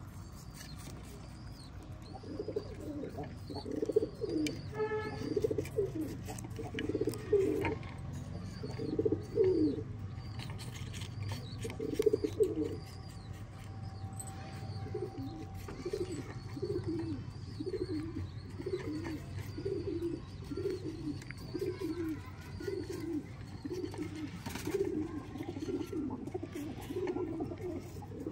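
Pigeons cooing: low call phrases start about two seconds in, irregular at first, then settle into a steady run of about one coo a second in the second half. A faint, thin high chirping runs underneath.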